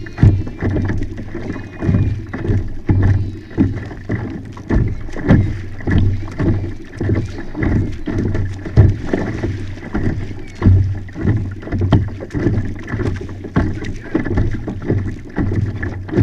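Small waves slapping against the plastic hull of a Hobie pedal-drive kayak under way, in uneven repeated slaps about every half second to a second over a steady low rumble of water.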